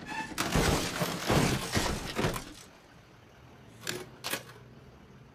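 An old Moskvich car falling to pieces: a loud, drawn-out crash and clatter of metal body panels and parts dropping onto icy ground, then two sharp knocks about four seconds in.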